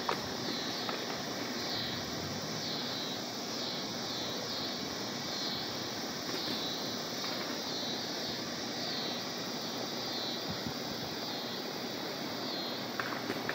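Outdoor ambience as a storm approaches: a steady rushing noise with a high chorus of insects pulsing about once a second.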